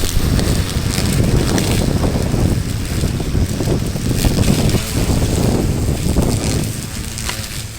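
Milwaukee M18 cordless lawn mower cutting long grass, its running sound uneven rather than a steady hum, with wind rumbling on the microphone.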